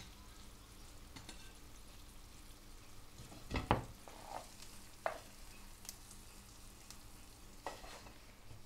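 A wooden spoon knocking and scraping in a frying pan as onion-and-pepper sofrito is spooned out. There are a few faint knocks, the loudest a little over three and a half seconds in.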